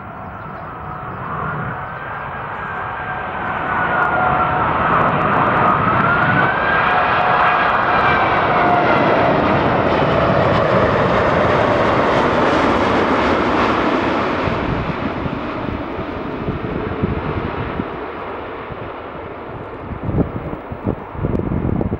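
Airbus A380's four Rolls-Royce Trent 900 turbofans at approach power as the airliner flies low past on final approach. A jet rush with a whining tone that bends and falls in pitch as it passes, loudest in the middle and fading as it moves away.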